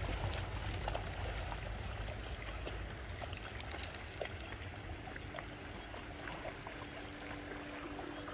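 Shallow river running over stones, with dogs splashing as they run and wade through the water in scattered small splashes. Faint music comes in near the end.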